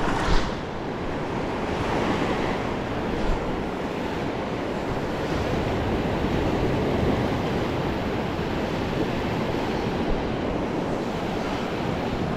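Surf breaking and washing up a sandy beach, a steady rush of waves.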